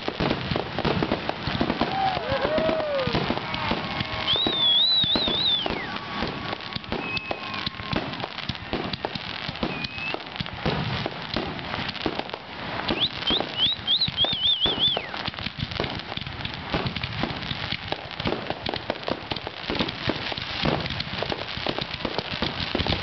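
Fireworks display going off in a dense, continuous barrage of rapid crackles and pops from fountains and aerial bursts.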